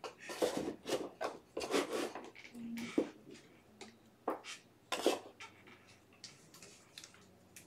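Trading cards being handled, slid across a tabletop and stacked: a run of short papery swishes and rubs, with a light tap about three seconds in.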